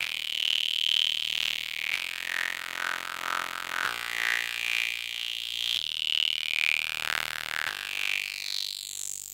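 Electronic synthesizer music: a noisy, wavering synth texture of held chords that shift about every two seconds.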